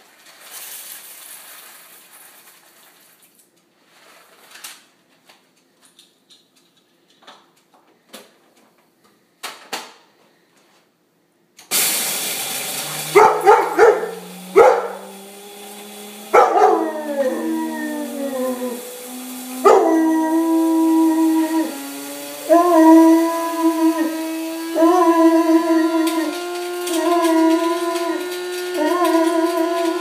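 Coffee beans poured into a coffee maker's grinder, with small clicks and rattles. About 12 seconds in, the machine's built-in coffee grinder starts with a steady grinding whir. Over it a yellow Labrador howls along: long howls that slide in pitch at first, then settle into held, wavering notes.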